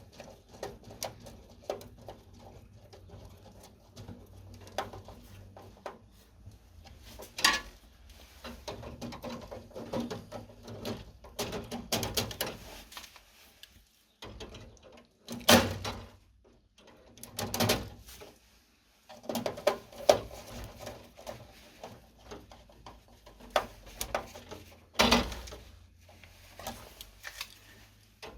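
Scattered clicks, knocks and clatter of hand tools and parts inside an electrical switch cabinet while a new siren contactor is fitted and wired in, with a few sharper knocks standing out.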